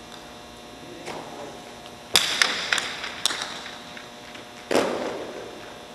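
Jai alai pelota hitting the fronton walls during a rally. A loud crack comes about two seconds in, followed by a few lighter knocks, and another heavy hit comes near five seconds, each echoing in the court.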